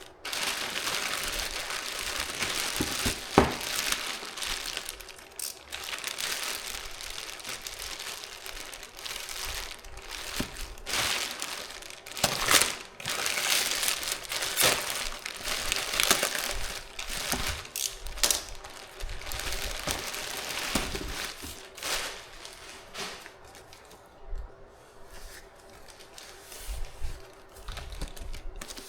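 Packaging crinkling and rustling as it is unwrapped and handled, with scattered clicks and a sharp knock about three and a half seconds in. The rustling turns quieter over the last few seconds.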